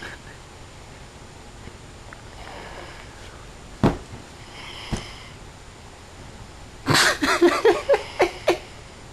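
A man snoring in his sleep: faint breathy snore breaths with two sharp snorts, then a quick run of louder short snorting sounds near the end.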